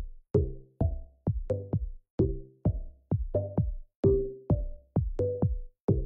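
Electronic background music with a steady drum-machine beat of about two hits a second, each followed by short bass and synth notes.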